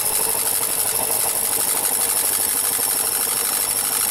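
C.E.SET brushed motor of a Hotpoint washing machine running at spin speed, with a steady, loud, clickety crackle. The noise comes from one worn carbon brush that has a bad contact and is arcing against the commutator.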